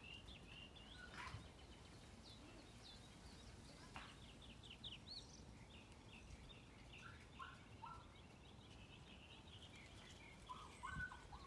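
Faint morning birdsong: several small birds chirping in quick short notes, with a few lower calls later and a couple of sharp clicks.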